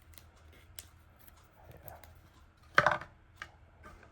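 Small plastic toys being handled and rummaged through, with scattered light clicks and a short clatter of hard plastic knocking together about three seconds in.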